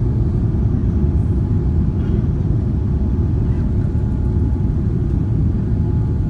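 Steady low rumble of engine and airflow noise inside the cabin of a Boeing 787-9 airliner climbing out after take-off.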